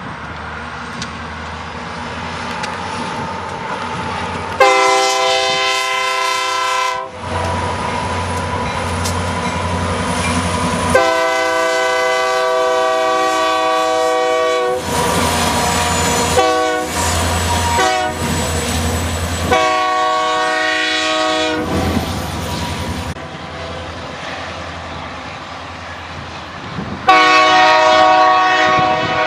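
Union Pacific diesel freight locomotives sounding their air horn in a series of long and short blasts, over the steady rumble of the engines and the wheels on the rails. The blasts come in a cluster through the middle, and another long one starts near the end.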